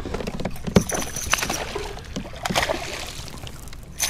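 Water splashing and sloshing beside a kayak, with scattered clicks and knocks, as a hooked bass is fought at the boat.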